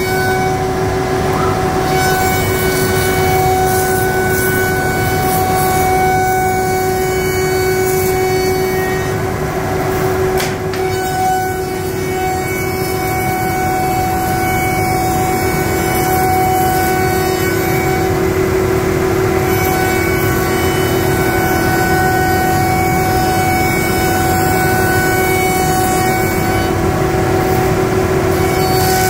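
CNC router running steadily while machining timber rails, its spindles giving a constant whine over a machining noise, with a brief dip and a click about ten seconds in.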